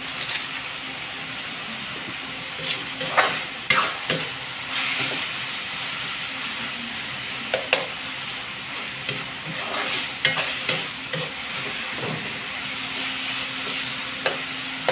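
Pork and tomatoes sizzling in a metal wok while a metal spatula stirs them, with a handful of sharp scrapes and knocks of the spatula against the pan.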